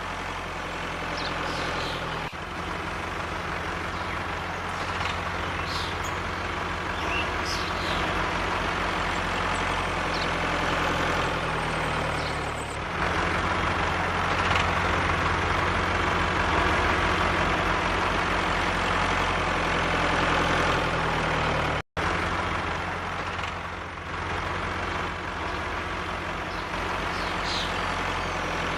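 Tractor engine running steadily, its drone shifting abruptly a few times where clips are joined, with a brief dropout about three quarters of the way through.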